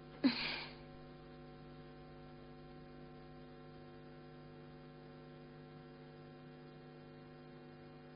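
A steady electrical mains hum with a stack of even overtones, left in the soundtrack's background. About a third of a second in there is one brief noisy burst, much louder than the hum.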